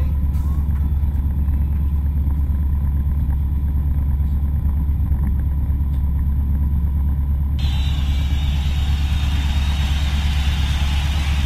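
Light single-engine aircraft's piston engine and propeller running steadily, a deep, even rumble heard inside the cockpit. About two-thirds of the way in, a steady hiss suddenly joins it.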